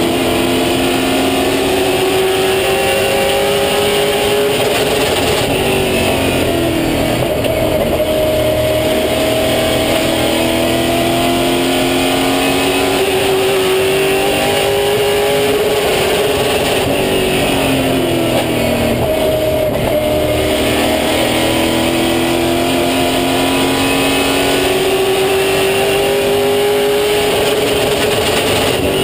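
Super Late Model race car's V8 engine at racing speed, heard from inside the cockpit. The revs climb steadily under power and then fall off quickly three times as the driver lifts, with steady road and wind noise underneath.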